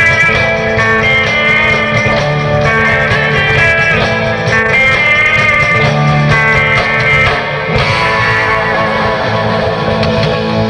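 Instrumental rock music led by electric guitar, loud and steady, with the texture changing about eight seconds in.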